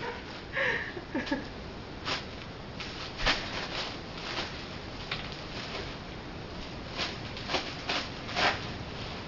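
Plastic bubble wrap being handled and stepped on: scattered crinkles and sharp pops at irregular intervals, several seconds apart.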